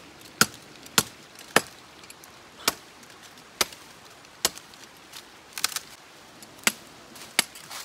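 A heavy curved blade chopping into a green tree branch: sharp, separate whacks at roughly one a second, irregularly spaced, with two close together a little past halfway.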